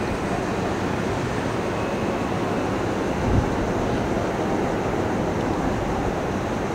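Steady noise of a Metro-North electric multiple-unit commuter train running away along the tracks, with one low thump a little over three seconds in.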